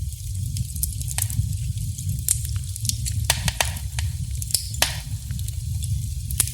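Wood fire burning in a fireplace: irregular sharp crackles and pops over a steady low rumble, with a short hiss about three-quarters of the way through.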